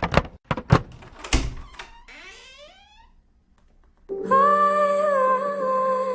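Four or five sharp thunks in quick succession, then a short rising tone, a brief near-silence, and background music with humming that starts about four seconds in.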